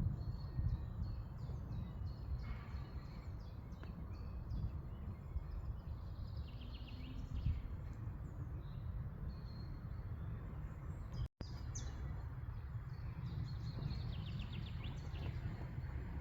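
Small birds chirping, with a couple of short trills, over a steady low rumble of outdoor background noise. The sound cuts out for an instant about eleven seconds in.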